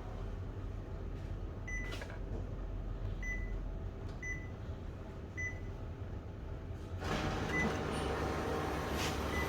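Kyocera TASKalfa photocopier humming, with short high beeps about every second, then louder mechanical running noise starting about seven seconds in.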